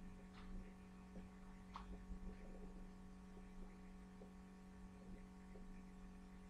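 Near silence: a steady low electrical hum, with two faint clicks in the first two seconds.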